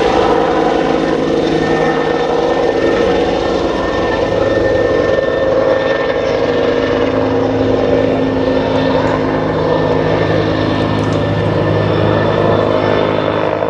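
Rescue helicopter in flight: steady rotor and engine sound.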